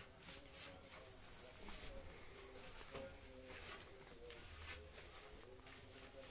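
Steady high-pitched chirring of crickets or similar insects, with a few faint knocks.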